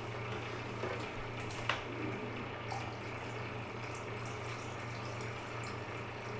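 Automotive paint reducer pouring from a plastic jug into a graduated mixing cup, a steady trickle of liquid, over a constant low hum. There is one light tap about two seconds in.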